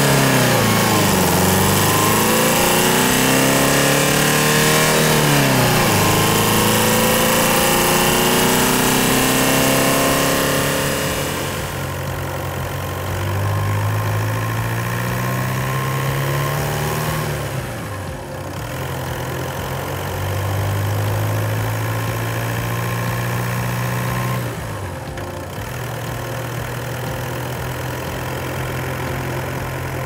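Audi A4 B8 2.0 turbo-diesel inline-four engine running, its revs rising and falling several times. About twelve seconds in the sound turns quieter and duller, then the revs climb slowly and drop away twice.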